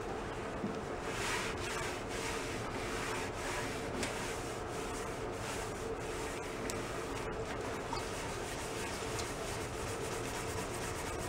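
Kitchen scouring pad wet with lacquer thinner scrubbed back and forth over a painted motorcycle fuel tank, about one and a half strokes a second, to strip a coat of black spray paint.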